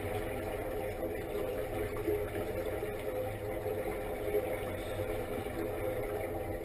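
A steady mechanical hum with several held tones and a low rumble, heard through the water on an underwater recording.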